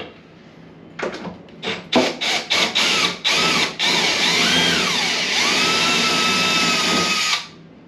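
Power drill running in several short trigger bursts, then one longer run of about three and a half seconds whose pitch rises and falls as the speed changes, ending abruptly.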